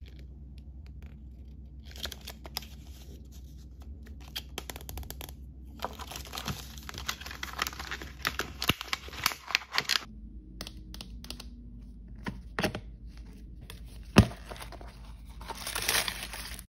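Plastic wrapping of an L.O.L. Surprise toy ball being peeled and torn open by hand, crinkling and crackling in irregular spells, with one sharp loud click about two-thirds of the way through.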